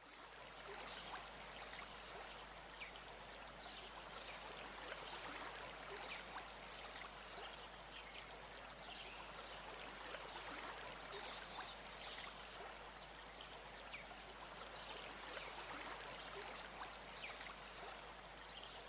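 Steady rushing noise, like running water, with faint short chirps scattered through it and a low hum underneath.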